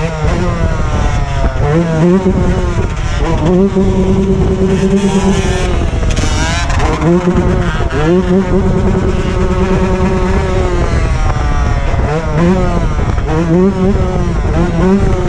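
Dirt bike engine revving: it climbs and is held at high revs for a couple of seconds at a time, twice, then gives several quick blips near the end.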